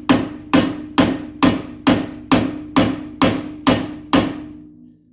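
Steady hammer blows on a tie rod end's stud, about two a second and ten in all, each with a short metallic ring. They are meant to drive the tapered ball joint out of the steering arm, with the nut left on to save the threads, but the joint does not come free. The hammering stops about four seconds in.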